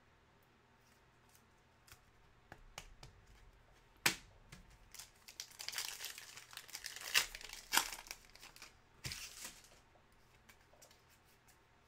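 Plastic wrapper of a Panini Contenders basketball card pack being torn open and crinkled by hand. A sharp snap comes about four seconds in, followed by a few seconds of crinkling and tearing.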